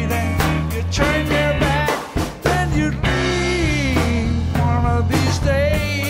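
Rock band rehearsal: drums, bass and Hammond organ playing together, with a steady drumbeat and several notes sliding down in pitch.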